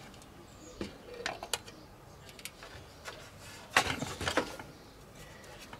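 Scattered light clicks and knocks of hands handling the parts of a Corsair One compact PC case, with a cluster of louder knocks about four seconds in.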